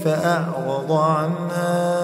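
Male Quran reciter chanting in melodic tajweed style, one voice drawn out on long notes that bend up and down in pitch.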